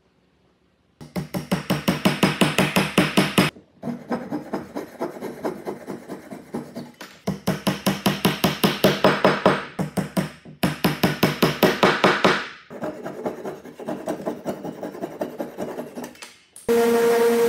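Japanese flush-cut pull saw cutting protruding wooden dowel pins flush with a walnut box, in quick, even back-and-forth strokes of about six a second, in several short runs. Music starts near the end.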